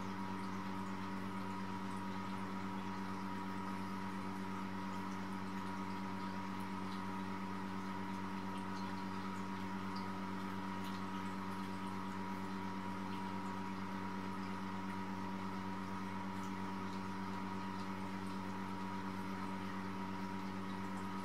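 A steady machine hum at an even level, with faint scattered ticks over it.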